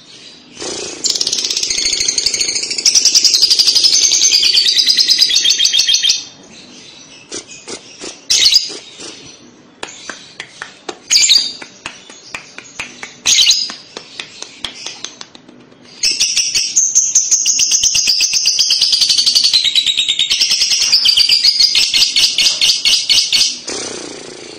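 Lovebird ngekek ('kekek'): long runs of rapid, high-pitched chattering notes, each run lasting several seconds. There are two long runs, one starting about a second in and one starting about two-thirds of the way through, with short chirps and clicks between them.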